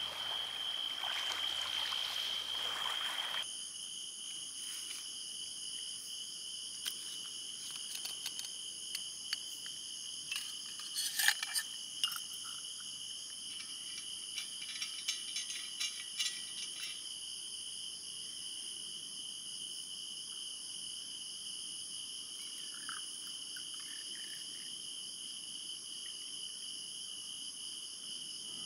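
Night insects, crickets among them, trill steadily on several high pitches. For the first few seconds sea water washes at the shore beneath them. After that come scattered small metallic clicks and clinks, loudest about 11 seconds in, as a stainless steel flask is opened and a steel cup is handled and filled on a rock.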